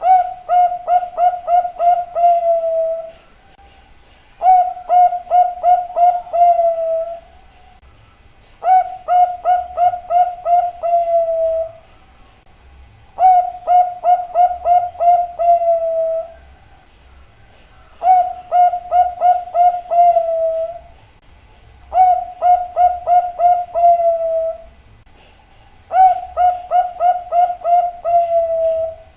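Zebra dove (perkutut) cooing its song: seven phrases about four seconds apart, each a quick run of six to eight notes that ends in a longer drawn-out note.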